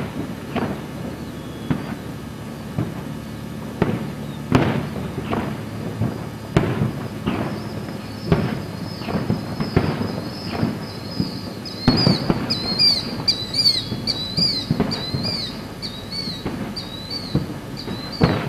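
Aerial fireworks shells bursting, a string of booms about one or two a second over a low rumble, the loudest right at the start and about four and a half seconds in. From about twelve seconds in a high chirp repeats a few times a second behind the booms.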